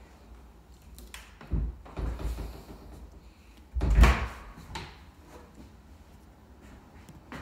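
Pair of hinged closet doors being unlatched and pulled open: a few knocks and rattles of the doors and their metal hardware, the loudest knock about four seconds in, followed by a small click.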